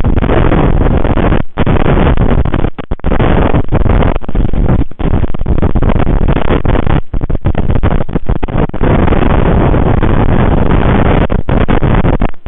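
Strong wind buffeting the nest camera's outdoor microphone, a loud, heavy rumble that cuts out for an instant several times.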